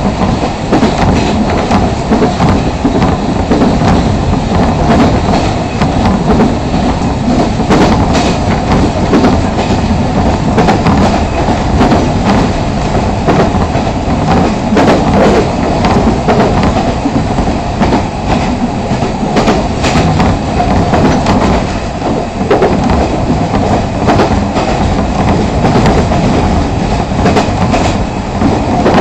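Running noise of a Fukui Railway Fukubu Line train at speed, heard from on board: a steady, loud rumble of wheels on the rails with irregular clicks.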